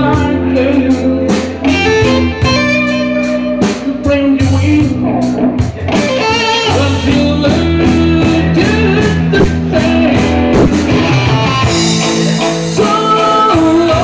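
Live band playing a slow blues: a Stratocaster-style electric guitar carries bent, wavering lead notes over drums and steady cymbal strokes.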